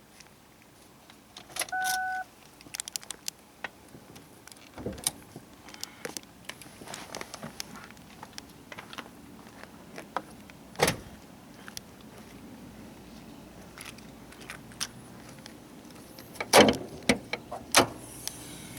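Car keys jangling and clicking in the ignition as the key is turned, with a short electronic beep about two seconds in and scattered knocks and clacks, the loudest near the end. No starter crank is heard: the starter is not responding, which is taken for a bad starter or solenoid.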